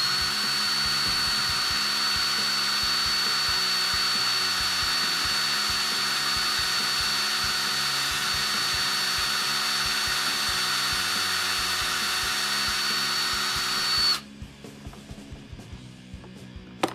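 Ryobi cordless drill running at a steady high speed with a high whine, held on a small plastic power-seat motor housing, then stopping abruptly about fourteen seconds in. A single sharp click follows near the end.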